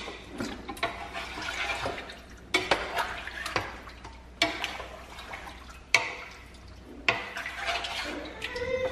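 A wooden spoon stirring and breaking up coagulated mozzarella curd in its whey in a large aluminium pot, a wet sloshing with sharp knocks every second or so as the spoon hits the pot. This is the curd being cut so the whey separates out.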